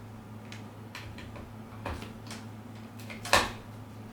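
Scattered light clicks and knocks of a delivered package being handled and opened, with one louder knock about three and a half seconds in, over a steady low electrical hum.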